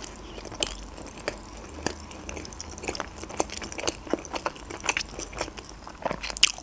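A woman chewing a mouthful of manti (steamed meat dumplings) with her mouth closed: soft, irregular wet smacks and clicks, several a second.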